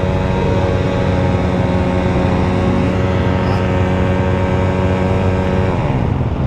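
Dirt bike engine held wide open at steady, unchanging high revs, the throttle pinned after the rider's mistake on the hill climb; the revs drop off about six seconds in.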